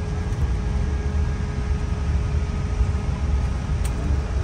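Steady cabin noise inside an Airbus A350: a low rumble under an even hiss, with a faint steady hum.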